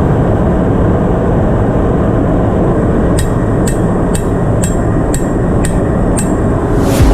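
Hammer blows on metal, about two a second starting some three seconds in, with a harder blow near the end. They sound over the steady loud rumble of a ship's engine-room machinery, during work on a fuel oil purifier bowl.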